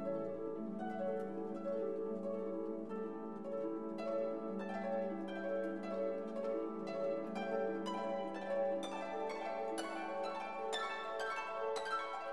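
Background instrumental music: plucked string notes over a held low note, the plucked notes coming thicker and faster from about four seconds in.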